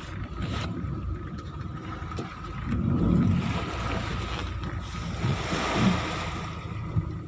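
A vehicle's engine running with the rumble of tyres rolling over beach sand, with some wind noise.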